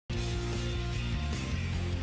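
Guitar music that cuts in abruptly right after a split second of silence, with held low bass notes that change every second or so.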